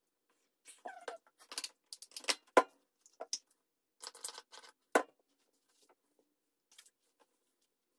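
Close handling noise from hands working a wig and a small product bottle: rustling and a series of sharp clicks, the loudest about two and a half seconds in and again at five seconds.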